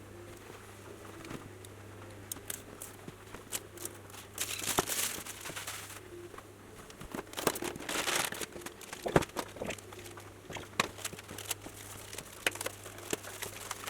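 Packaging crinkling and rustling in a few irregular bursts, with light clicks and knocks of handling, as a PC power supply is unpacked.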